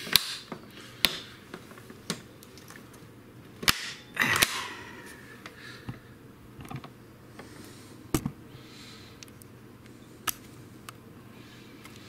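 Plastic clicks and knocks from a Miele S6 vacuum cleaner's top cover being handled and pried while it is fitted back onto the body, with a short scrape about four seconds in.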